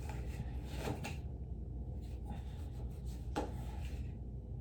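A few soft knocks and rubbing from a pistol and its parts being handled, a couple about a second in and another past three seconds, over a low steady hum.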